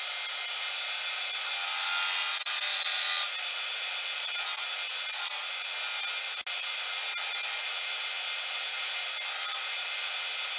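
Bench belt sander running with a steady hiss while a small metal charm is pressed against the belt. It grinds louder for about a second and a half near the start, then touches the belt twice more briefly.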